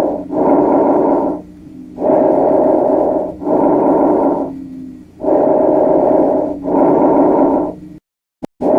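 Bronchovesicular breath sounds heard through a stethoscope: a rushing sound on each breath in and out, the two about equally long with a short pause between. The sound cuts off briefly near the end, with a click, before the breathing starts again.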